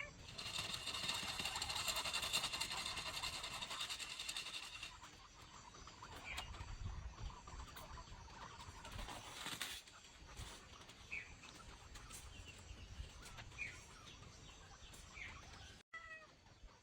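Kitten meowing, a series of short meows spaced a few seconds apart, over a louder rough noise in the first few seconds.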